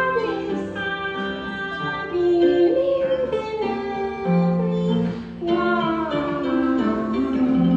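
Concert pedal harp played live, plucked notes ringing in a flowing accompaniment, with a woman singing along.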